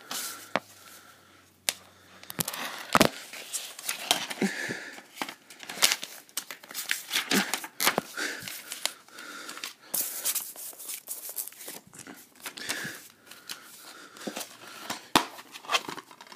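Handling noise: irregular rustling, crinkling and rubbing with many scattered sharp clicks, from something moving against the phone's microphone.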